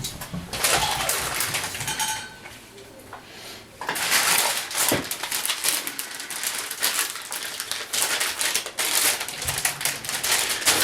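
Crinkling and rustling of packaging with small clicks and knocks as a replacement laptop LCD panel is handled and unwrapped from its foam and plastic film; it eases off for about two seconds before the rustling picks up again.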